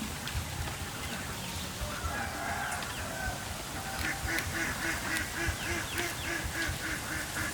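Farm waterfowl calling: a few notes about two seconds in, then a rapid, even series of calls at about four a second.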